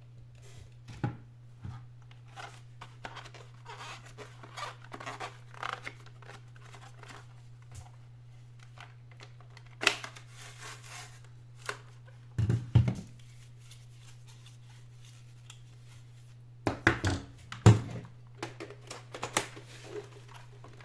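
Hands working on the plastic turbo brush head of a Samsung VS20 stick vacuum: scattered clicks, knocks and scraping of plastic parts, with a few sharper knocks. A faint steady low hum runs underneath.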